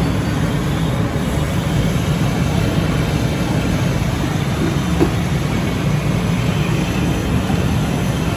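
Steady low rumbling noise, with a small tap about five seconds in.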